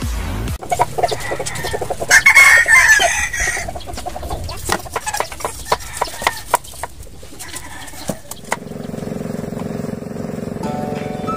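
Chickens in a yard, with a rooster crowing loudly about two seconds in, then a run of sharp clicks and knocks. About eight and a half seconds in, a small boat's engine starts a steady hum.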